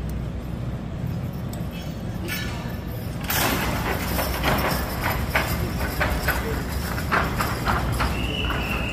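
Team of draft horses straining against a weighted pulling sled on a dirt arena floor. From about three seconds in there are many irregular hoof stamps and knocks over a low steady hum, and a steady high tone comes in near the end.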